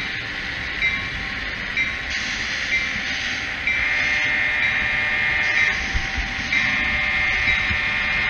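Diesel locomotive sound for a model train: the engine runs steadily, with short horn-like tones about once a second at first, then two long blasts on a multi-note air horn.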